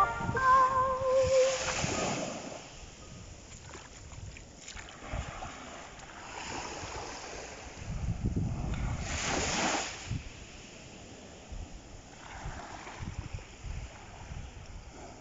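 Small, calm sea waves washing up a sandy beach and drawing back, each wash swelling and fading, the strongest about nine seconds in.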